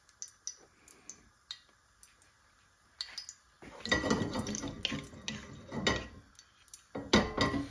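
Cumin seeds sizzling faintly in hot oil in a frying pan, with a ladle scraping and knocking against the pan from about three and a half seconds in as excess oil is scooped out.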